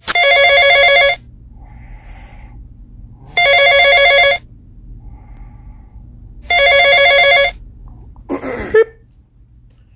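Mobile phone ringtone ringing three times, each ring about a second long and about three seconds apart, a quickly pulsing electronic tone. A short sound follows about eight and a half seconds in.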